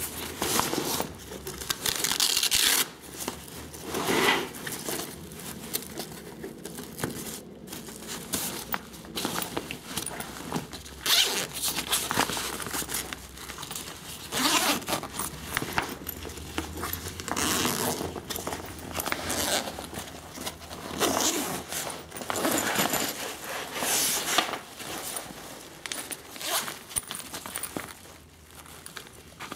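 Zippers on a Tasmanian Tiger Mission Pack backpack being pulled along in a series of short rasping strokes at irregular intervals, as hands open the pack's compartments.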